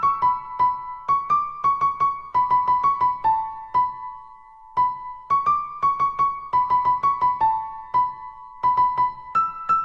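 Background music: a simple melody of short notes on an electric piano. It pauses briefly about four seconds in.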